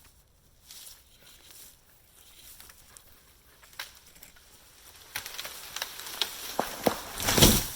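Pine tree being pulled over: sharp cracks and snaps of the hinge wood and limbs come faster for a couple of seconds, then a loud crash as the tree hits the ground near the end.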